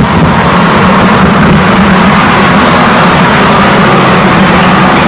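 Road traffic passing close by: a heavy vehicle's engine drone and tyre noise, loud and even.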